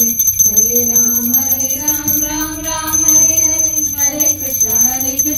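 A woman's voice singing a Hindu devotional chant in long, slowly gliding held notes, with a small hand bell ringing steadily over it, as during an aarti.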